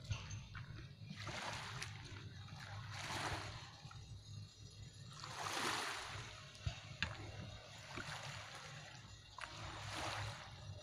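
Small waves washing onto the shore in slow swells, four times, the third the loudest, over a steady low rumble.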